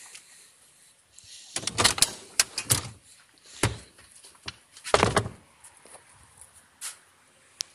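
Third-row fold-flat seat of a Citroën C4 Grand Picasso being folded down into the boot floor: a quick run of clunks and rattles from the seat's hinges and latches, a click, then the heaviest clunk about five seconds in as the seat drops flat, and a couple of light clicks near the end.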